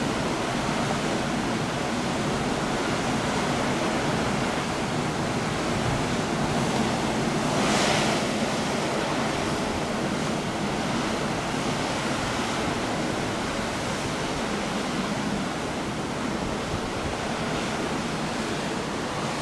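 Heavy surf of a typhoon-stirred sea breaking on rocks: a steady rush of white water, with one louder wave crash a little before the middle.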